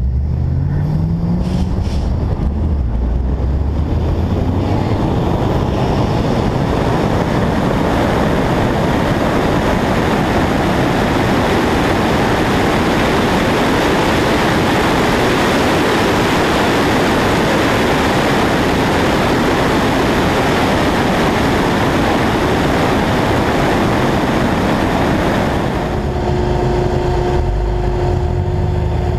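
2009 Chevrolet Cobalt SS's turbocharged 2.0-litre four-cylinder accelerating hard in a roll race, its pitch rising over the first couple of seconds. Then a long stretch at speed where heavy wind rushing over the microphone covers most of the engine. Near the end, after about 26 seconds, the rush gives way to a steadier, lower engine note with a few even tones.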